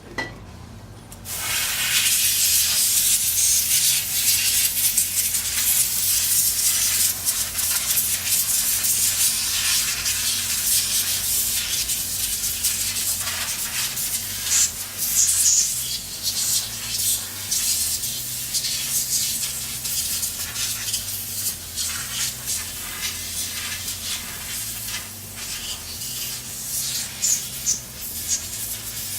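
Compressed air blowing dust out of computer parts: a loud hiss that starts about a second in, surges and eases, and breaks into shorter blasts near the end.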